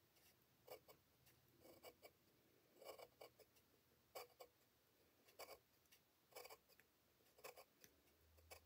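Faint scratching of a pencil on paper: short strokes, roughly one a second.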